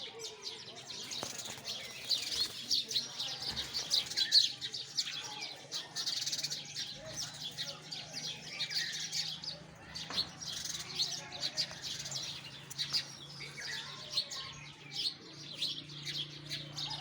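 Sparrows chirping continuously, many short calls overlapping at once. A faint steady low hum sits underneath from about six seconds in.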